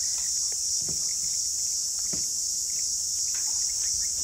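Steady, high-pitched insect chorus droning without a break, with a few faint, brief clicks.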